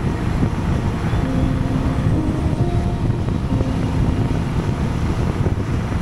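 Honda Gold Wing motorcycle with sidecar cruising at road speed: a steady low rush of wind on the microphone over engine and tyre noise.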